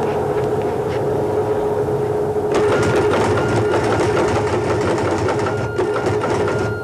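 A TTY teletypewriter working the call: a rapid mechanical clatter over a steady hum. From about two and a half seconds in, a higher beeping tone sounds on and off. It is the answering party's reply coming through and being printed.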